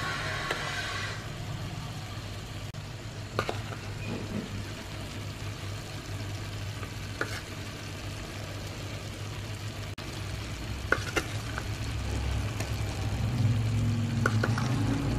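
A metal spoon clinks sharply a few times against the plate and the aluminium pot as pulao masala powder is spooned onto chicken cooking in the pot. Underneath run faint sizzling and a steady low hum, with a low rumble swelling near the end.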